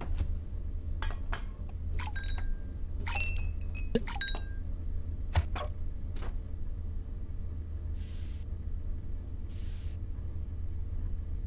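Small objects being handled: a run of light clinks and taps with short ringing tones, then two brief rubbing swishes near the end, over a low steady room hum.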